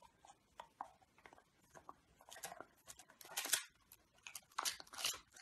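A dog biting and chewing a buttered crispbread: a run of irregular dry crunches, loudest about three seconds in and again near the end.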